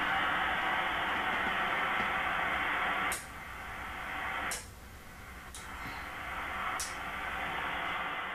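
Ham radio receiver playing empty band noise, a steady static hiss through its speaker. Four sharp clicks of the Ameritron RCS-8V antenna selector switch come about a second apart from roughly three seconds in. With each click the hiss changes level, dropping sharply at the first two, as a different antenna is switched in.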